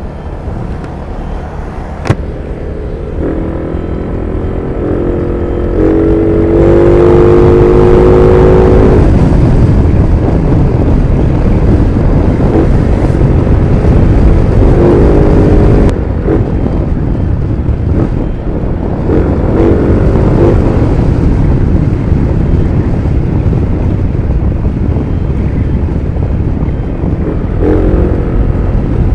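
Yamaha NMAX V1 scooter's single-cylinder engine breathing through an aftermarket Apido chicken pipe exhaust while riding, rising in pitch as it accelerates several times, most strongly a few seconds in, under a steady low wind rumble.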